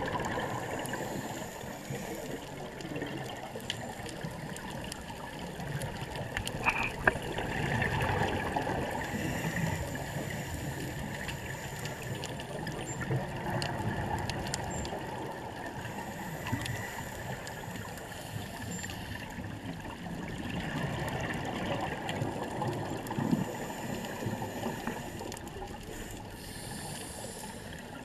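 Underwater sound through a dive camera: a steady wash of water noise that swells and fades with scuba exhaust bubbles, and faint humpback whale song in the background.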